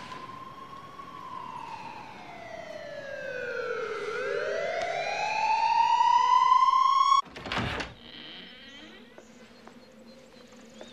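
Single pitched synthesizer tone from a horror score, sliding slowly down in pitch, then sweeping back up as it grows louder. It cuts off abruptly about seven seconds in with a short heavy thump, and a faint low hum follows.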